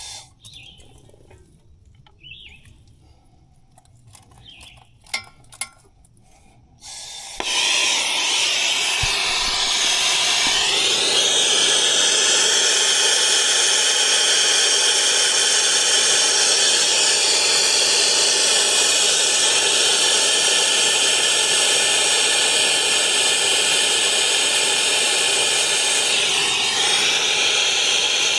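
A few light clicks and knocks, then about seven seconds in a turbo torch lights with a sudden start and burns with a steady, loud hiss, brazing copper refrigerant line-set joints.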